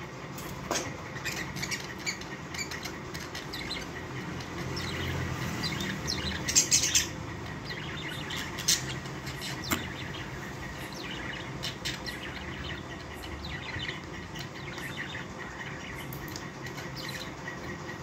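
Several budgerigars chattering with short, high chirps and squawks, with a louder burst of calls about seven seconds in.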